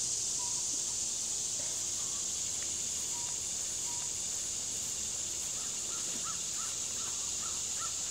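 Steady high-pitched drone of a summer insect chorus, with a few faint short bird calls, including a quick run of chirps near the end.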